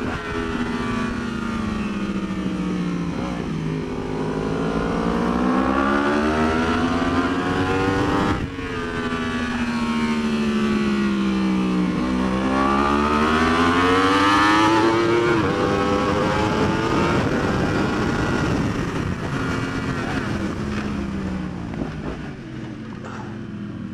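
2019 Yamaha R1's crossplane inline-four engine at track speed. The revs climb under hard acceleration and fall away into the corners twice, with a brief break in the note about eight seconds in, then run lower and steadier toward the end.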